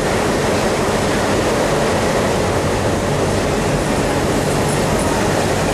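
Diesel-electric locomotive engine running steadily as it hauls a passenger train slowly past along the platform, a loud, even rumble with a low hum.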